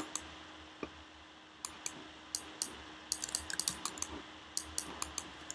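Computer keyboard keys clicking in irregular taps, sparse in the first second and a half, then a quick flurry of keystrokes a little past the middle, over a faint steady hum.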